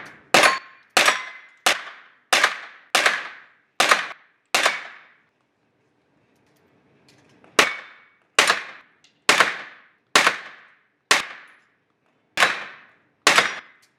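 Handgun shots fired rapidly on an indoor range, each trailing off in the hall's echo: a string of seven shots about two-thirds of a second apart, a pause of about two and a half seconds, then seven more at a similar pace.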